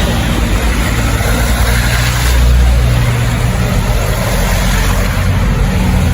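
A motor vehicle's engine running steadily, with a low rumble that swells a little a couple of seconds in, under a constant rushing noise.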